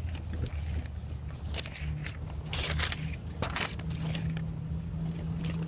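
Sheets of paper rustling and crinkling as they are handled close to the microphone, over a steady low hum from an idling vehicle engine. A steadier, slightly higher engine tone joins about two seconds in and holds from about four seconds on.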